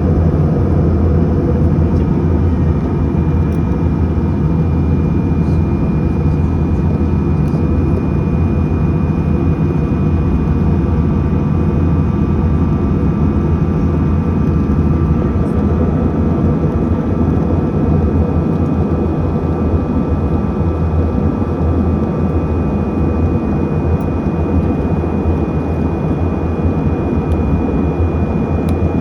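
Steady drone of an airliner in flight, heard from inside the cabin: an even low rumble with faint steady whining tones above it.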